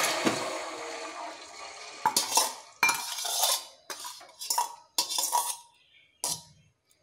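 Melted jaggery syrup pouring from a steel vessel into a steel pot, the stream tailing off over the first second or so. Then about eight short metal clinks and scrapes as the steel vessel knocks and rubs against the pot's rim while the last of the syrup is drained.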